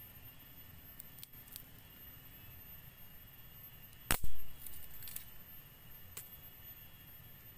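A dry branch snapped by hand: one sharp crack about four seconds in, followed by a few lighter cracks and clicks as the pieces break and are handled. Faint clicks of dry sticks being picked up come before it.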